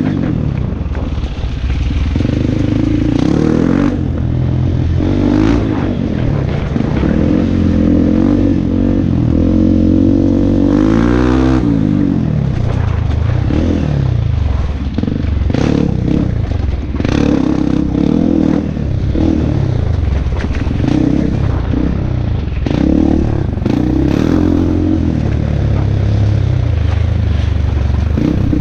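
Off-road motorcycle engine running under the rider, revving up and falling back again and again on a rough downhill dirt trail, with scattered knocks and clatter from the bike over stones and ruts.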